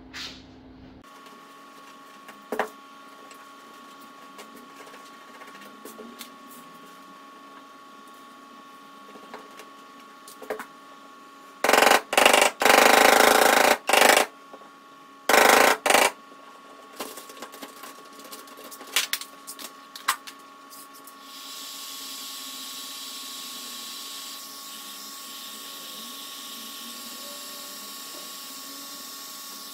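Dent-pulling work on an aluminium bonnet: scattered light clicks and taps, then two loud bursts of rushing noise about halfway through. For the last third a heat gun blows steadily, warming the hot glue so a pull tab can be released.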